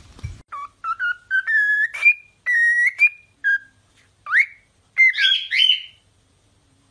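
Cockatiel whistling a short tune: clear notes stepping up in pitch one after another, then a few quick upward-sliding whistles before it stops about six seconds in.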